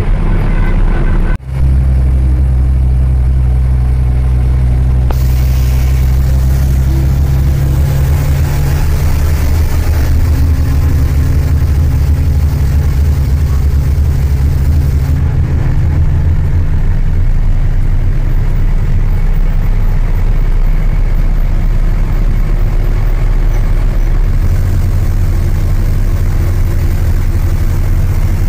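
Diesel goods truck's engine running steadily under way, heard from inside the cab as a deep, even drone with road noise. The sound cuts out briefly about a second and a half in.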